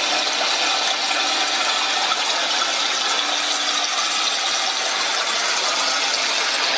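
Electronic sound generated from dancers' movements by body-worn motion sensors, played over a loudspeaker: a steady, dense noise texture with faint held tones underneath.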